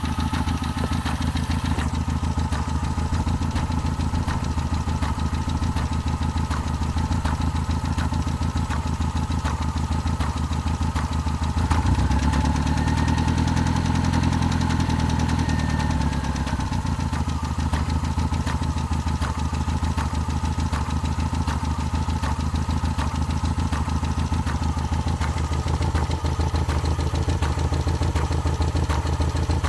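A 1994 Saturn engine idling with a recurring clank from the engine bay, the fault being tracked down. Near the middle the engine is revved briefly and then drops back to idle.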